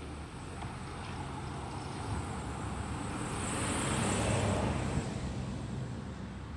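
An SUV drives past close by, its tire and engine noise swelling to a peak about four seconds in and then fading. Under it runs the steady low hum of a garbage truck's engine idling down the street.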